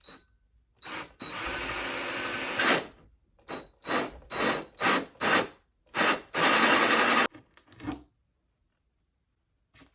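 Electric drill running in trigger bursts: a short spurt, a steady run of about a second and a half, a quick string of about five short pulses, then another run of about a second before it stops.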